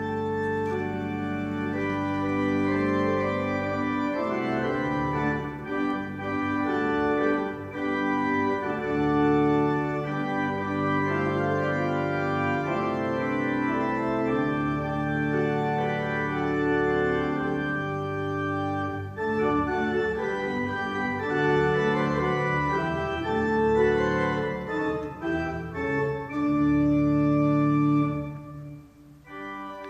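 Organ music: slow, held chords that change every second or two. It dips and breaks off briefly near the end, then goes on more quietly.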